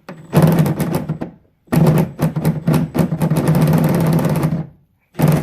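A tool running in the bolt that holds the new interior door handle on a 1996 Ford F-150: rapid rattling clicks in three runs, a short one, a longer one of about three seconds, and a brief one near the end.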